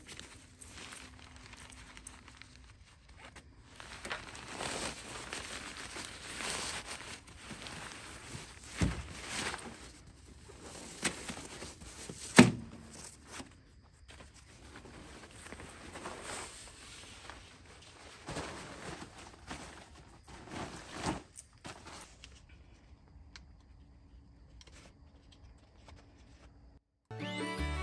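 Rustling and swishing of an inflatable sofa's fabric and its drawstring stuff sack as they are unpacked and handled, in irregular bursts, with a sharp knock about halfway through.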